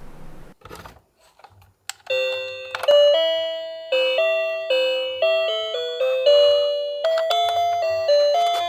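Toy bus's built-in electronic chime melody: a tune of bell-like notes, each struck and fading, beginning about two seconds in after a short click.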